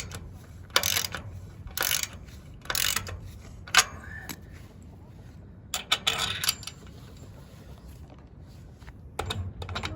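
Hand ratchet wrench clicking in short strokes about once a second, tightening a bolt, with one more burst of clicking near the middle.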